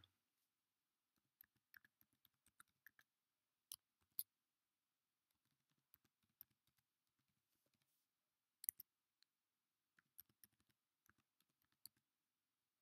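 Faint computer keyboard keystrokes as a username and password are typed: short sharp clicks in small irregular clusters with pauses between, a few louder strokes about four seconds in and near nine seconds.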